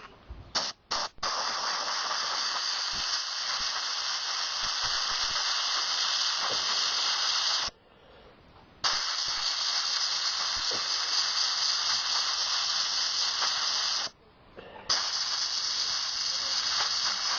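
Compressed air blowing out a lawn mower's air filter: a few short puffs, then three long, steady hissing blasts with brief pauses between them.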